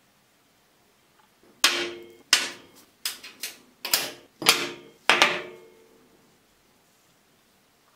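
Metal parts of a disassembled vintage compass cutter set down one after another on a workbench top: about eight sharp clanks, each with a short ring, some close together, from about one and a half to five and a half seconds in.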